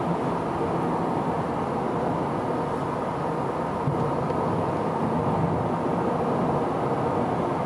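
Steady running noise of a vehicle in motion: an even rumble and hiss that holds at one level throughout.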